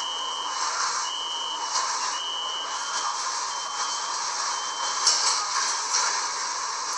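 Subway train door-closing warning beeps: a steady high beep about half a second long, repeating about once a second, the first three strong and later ones fainter, over a steady hiss. A bump about five seconds in as the sliding doors shut.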